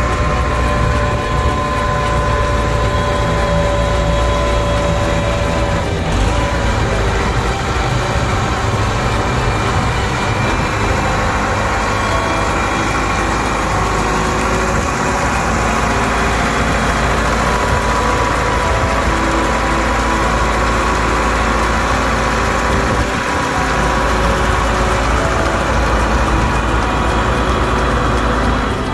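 Caterpillar IT28B wheel loader's Cat 3204 four-cylinder diesel running steadily with a low, even rumble. A thin steady whine sits above it for the first six seconds and comes back faintly later on.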